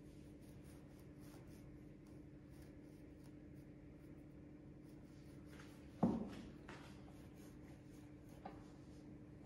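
Faint, quick scratchy strokes of toothbrush bristles rubbing on a plush toy, over a steady low hum, with one brief thump about six seconds in.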